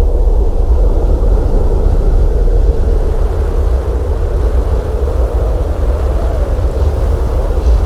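Blizzard wind howling steadily: a deep, continuous rumble with a wavering, hollow howl above it, no gaps or sudden events.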